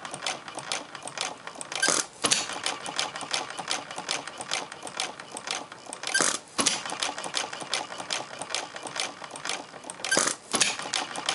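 Half-scale Olds hit-and-miss gas engine running, with a fast, steady mechanical clatter as it coasts. A louder firing stroke breaks in three times, about four seconds apart.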